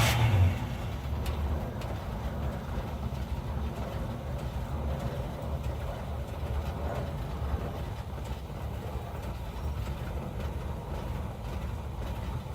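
1983 Chevrolet C10's 305 small-block V8 idling on a freshly rebuilt four-barrel carburetor, a steady low rumble after a brief louder surge in the first half-second.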